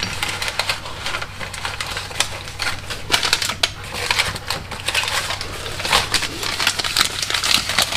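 Brake pads and their packaging being handled: a busy crinkling rustle with many irregular sharp clicks.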